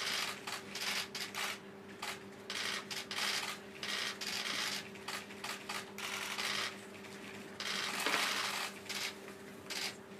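Press camera shutters clicking in rapid, irregular bursts, thickest near the end as the signed document is held up, over a steady low electrical hum.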